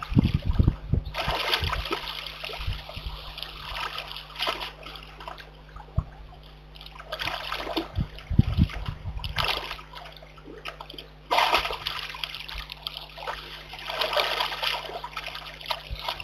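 A brown bear cub splashing and sloshing in shallow muddy water, in several bouts a second or two long with quieter stretches between.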